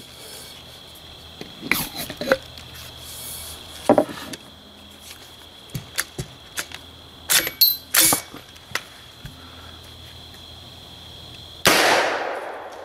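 Clicks and knocks of the X-Products Can Cannon golf ball launcher being loaded with a golf ball and readied, then near the end one sharp shot as it fires the ball, the report fading over about a second.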